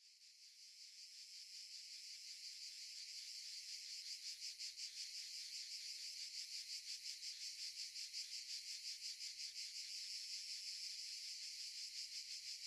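Insects chirping in a high, evenly pulsing chorus, faint and fading in over the first few seconds.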